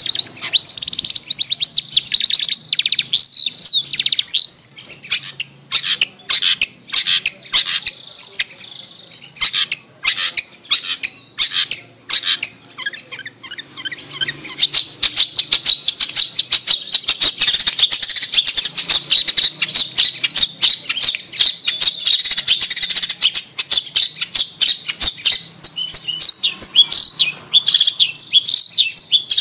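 Long-tailed shrike (cendet) singing: a fast, scratchy chatter of sharp high notes. It is dense at first, breaks into separate choppy notes for a while, then runs on as a continuous rapid chatter from about halfway through.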